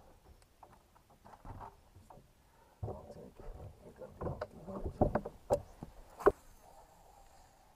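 Irregular knocks and bumps of handling on a fishing boat, sparse at first, then crowding together from about three seconds in and ending in a sharp click a little after six seconds.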